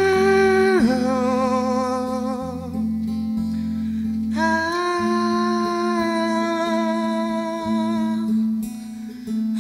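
Live acoustic band music: a lead voice sings two long held phrases over strummed acoustic guitars and electric bass.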